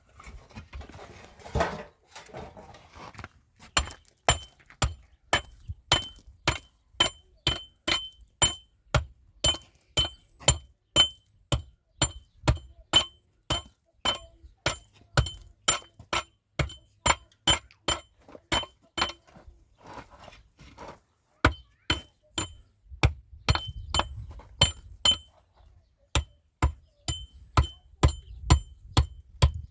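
Repeated sharp strikes on a ringing, likely metal object, about two a second, each with a short high ring, pausing briefly twice. They start about four seconds in, after a few seconds of duller handling noise.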